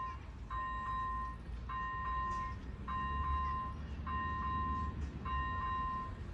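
Railway level crossing warning signal sounding a repeating electronic tone, about once every 1.2 seconds, over a low rumble.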